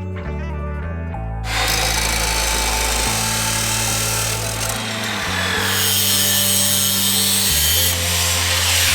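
Background music with a stepping bass line; from about a second and a half in, a power tool such as a drill or grinder runs continuously over it.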